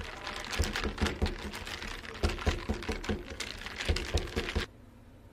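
Long metal bar spoon stirring milk tea with tapioca pearls in a plastic cup, clicking and rattling rapidly against the cup. It stops abruptly about a second before the end.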